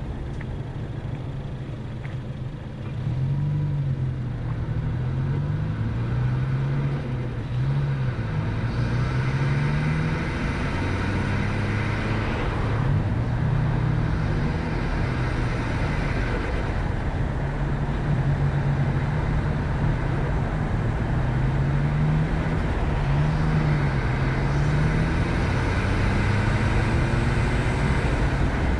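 Ford Focus ST engine and road noise heard while driving, the engine note rising with each acceleration and dropping back at each gear change, several times over; the engine gets louder about three seconds in, and a rush of tyre and wind noise swells twice.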